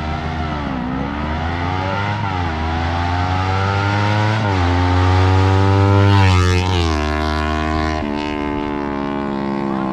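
Kawasaki Ninja 250 parallel-twin engine running through an R9 GP SS aftermarket exhaust. Its pitch climbs steadily and then drops sharply about four times, as when shifting up through the gears.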